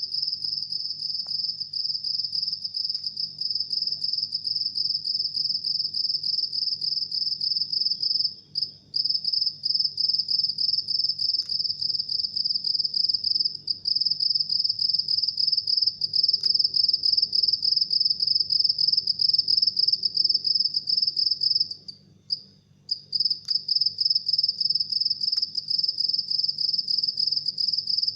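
House cricket (Acheta domesticus) chirping: a male rubbing its wings together to give a long, high-pitched run of rapid, evenly spaced pulses. The song breaks off briefly twice.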